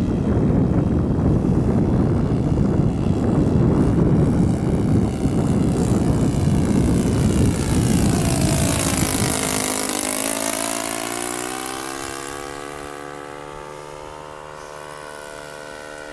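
Radio-controlled scale model biplane flying overhead, its propeller engine's pitch dipping and rising again about two-thirds of the way through, then holding steady as it fades away. Heavy wind rumble on the microphone covers the first half.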